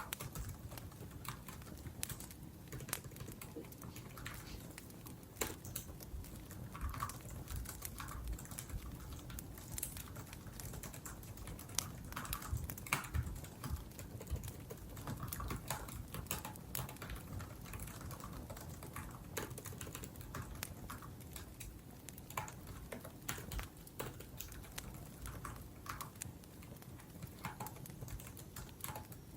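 Typing on a laptop keyboard: irregular key clicks over a steady low crackle of a wood fire burning.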